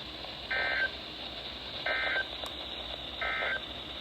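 Three short, identical bursts of NOAA Weather Radio SAME digital data tones, about a second and a third apart: the end-of-message code that closes the weekly test broadcast. They sit over steady radio hiss that cuts off at the end.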